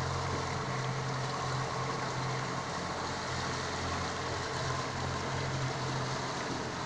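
Boat engine running steadily with a constant low hum, over a steady hiss of water and wind.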